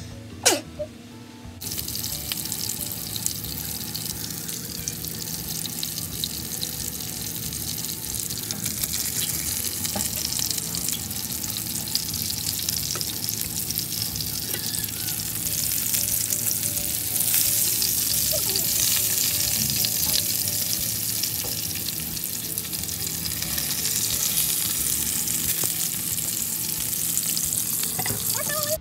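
Breaded eggplant-and-bacon rolls frying in a double-sided grill pan, with a steady hissing sizzle. The sizzle starts about a second and a half in, after a brief falling sweep.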